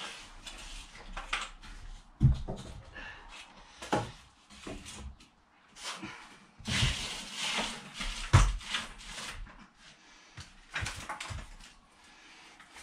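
Plywood offcuts and a timber door being handled: irregular wooden knocks and clatter, with a stretch of scraping in the middle, as offcuts are packed under the door to hold it up.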